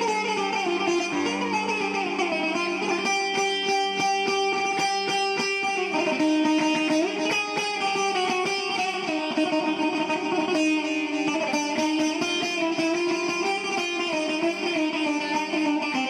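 Instrumental background music led by a plucked string instrument, with held notes and a passage of quickly repeated notes a few seconds in.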